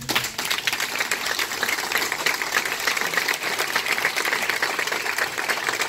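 A small crowd applauding, many hands clapping together in a steady, even patter that starts as the speech stops.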